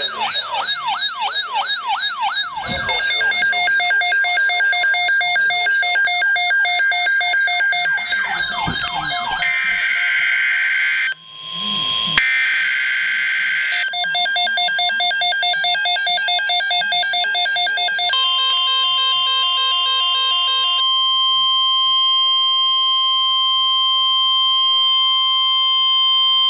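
A sequence of electronic siren and alarm tones: fast rising-and-falling siren sweeps, then rapid beeping and warbling alert patterns. About two-thirds of the way in, a long steady tone near 1 kHz takes over, like the NOAA Weather Radio warning alert tone.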